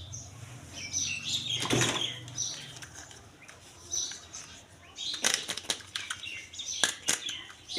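Crinkling and rustling of plastic packaging, with sharp clicks of toy parts being handled, in irregular bunches. The loudest stretches come about a second and a half in and again from about five to seven seconds.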